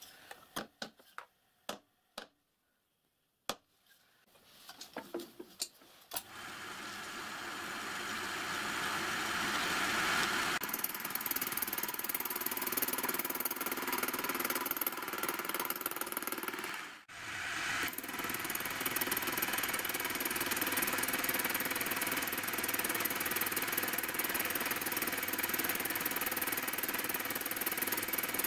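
A few sharp clicks and knocks of metal on the machine vice. About six seconds in, a milling machine starts and builds over a few seconds to a steady run, its face cutter taking a cut across a bronze block clamped in the vice. The sound dips briefly once about two-thirds of the way through.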